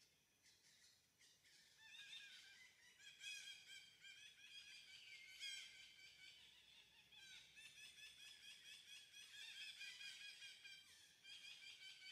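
Faint chorus of birds chirping, many short high calls overlapping one another, growing denser about two seconds in.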